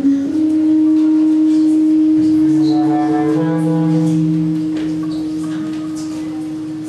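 Improvised music: a bass clarinet holds one long steady note, and lower sustained tones join beneath it about two seconds in.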